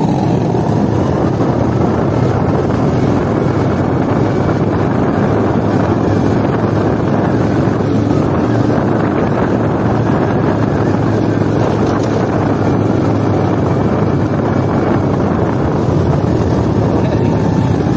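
Motorcycle engine running steadily while riding along, mixed with steady wind noise on the microphone.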